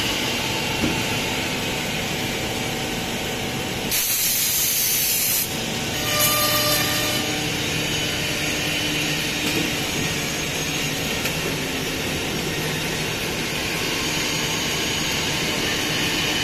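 Wood door CNC milling line running: a steady machine drone with several faint steady tones, broken by two short, loud hisses about four and six seconds in.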